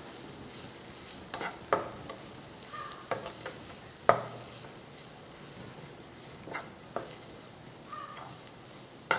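Wooden spatula stirring and scraping a chicken-and-onion filling in a nonstick frying pan, mixing the garam masala through, with irregular knocks against the pan. The loudest knock comes about four seconds in. Under it is a faint steady hiss.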